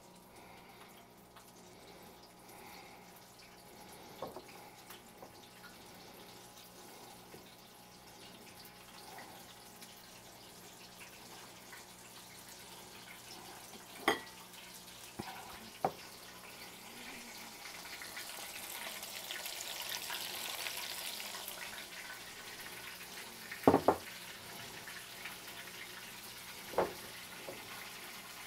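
Faint steady sizzle of panko-breaded bull testicle pieces deep-frying in hot oil in a cast-iron skillet, with the burner off and the oil cooling. The sizzle swells for a few seconds about two-thirds through. A handful of sharp clicks from the glass breading bowls sound around the middle and near the end.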